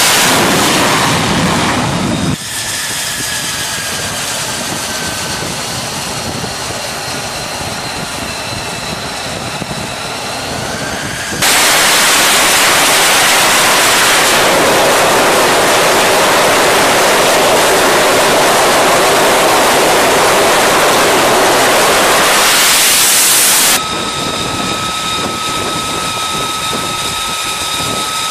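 F-35C jet engines (Pratt & Whitney F135 turbofan) on a carrier flight deck: a loud roar at high power, dropping suddenly about two seconds in to a high, whistling turbine whine whose tones slowly slide in pitch. The loud roar returns about eleven seconds in, then near the end gives way again to a steady high whine.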